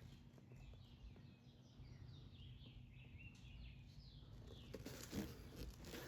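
Faint bird chirping, a run of quick falling chirps in the middle, over a near-silent low hum, with a soft knock near the end.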